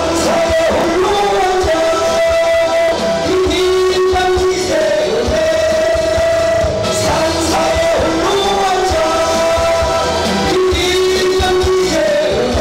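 Music: a song with long held, wavering melody notes that slide between pitches, over a band accompaniment with drums.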